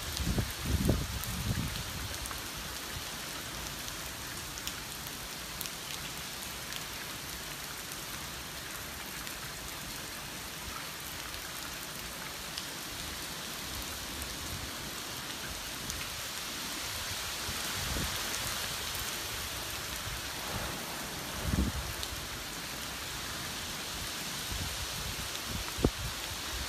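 Typhoon rain falling steadily, an even hiss that swells a little about two-thirds of the way through. A few short low buffeting thumps of wind break in near the start and again near the end.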